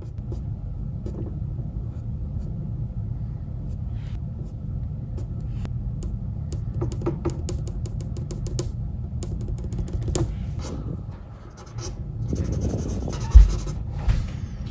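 A drawing tool scratching over paper in short runs of quick strokes on a graphite drawing, over a steady low rumble. A sharp knock near the end is the loudest sound.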